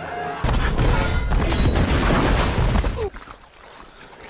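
Action-film sound effects: a loud crashing, shattering rumble that starts about half a second in and cuts off suddenly about three seconds in, leaving a faint tail.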